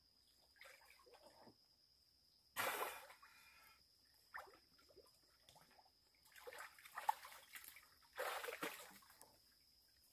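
Water splashing and sloshing as a person moves in shallow water among mangrove roots, in several short bursts; the loudest comes about two and a half seconds in, with more splashing around six and eight seconds.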